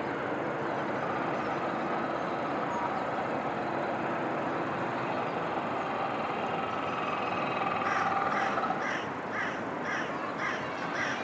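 Steady background rush, joined about eight seconds in by a crow calling in a quick run of about seven caws, roughly two a second.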